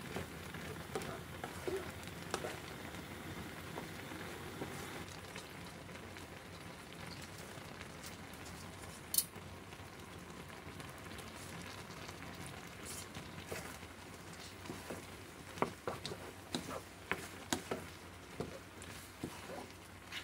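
Creamy rosé tteokbokki sauce bubbling and sizzling in a nonstick frying pan, with a wooden spatula scraping and knocking against the pan as it is stirred; the knocks come more often in the last few seconds.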